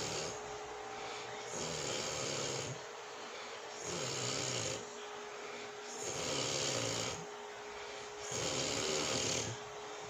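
A sleeping woman snoring loudly and regularly: four full snores plus the end of one at the start, each about a second long and about two seconds apart, a low buzzing tone with breathy hiss.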